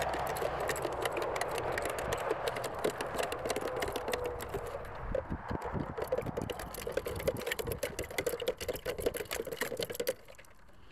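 Sugar being stirred into warm water in a container, a quick, continuous run of light clicks and scrapes from the stirrer against the container wall that stops about ten seconds in. The sugar is being dissolved for a yeast-and-sugar mosquito bait.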